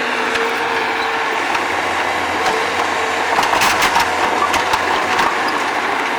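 Bobcat skid-steer loader's engine running steadily. A quick series of sharp knocks and clatter comes a little past the middle.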